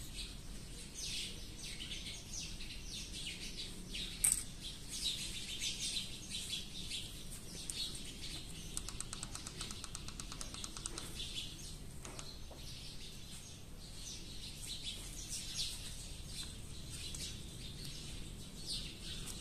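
Small birds chirping continuously in quick, short notes, with one sharp click about four seconds in.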